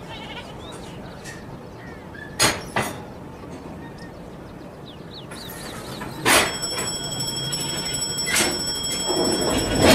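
ZCU-20 diesel locomotive and its passenger train approaching on the track, with sharp clacks twice a few seconds in and once more halfway, then a steady high-pitched whine and a swell of rumbling noise near the end. Birds chirp faintly in the background.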